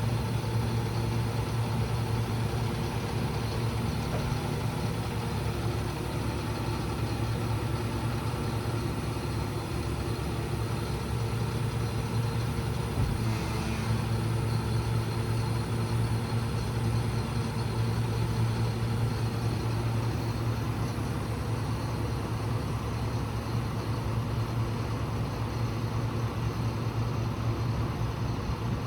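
Caterpillar C7 diesel engine of a Ford F-750 service truck running at a steady speed, with a low hum, while it drives the crane's hydraulics as the boom extends.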